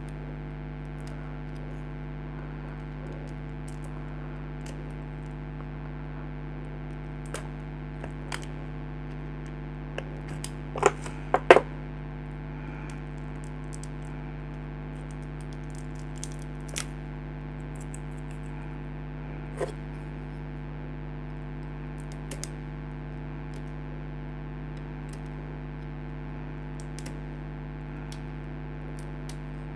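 Knife tip clicking and scraping now and then as it cuts the fuse free from the coil of a nebulizer's compressor motor, the loudest clicks about 11 seconds in. A steady low electrical hum runs under it.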